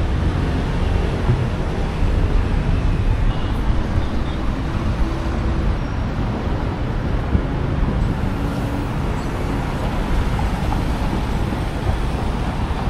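Steady, loud low rumble of vehicle noise, with a few brief faint tones over it.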